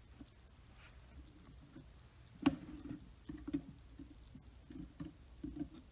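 Light clicks and taps of handling small parts and tools while a component is hooked onto a circuit board, with one sharper click about two and a half seconds in.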